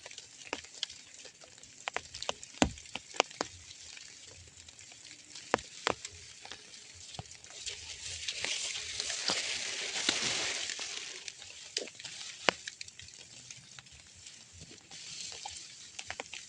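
Light rain pattering, with many scattered sharp drip taps. A rush of noise swells and fades around the middle.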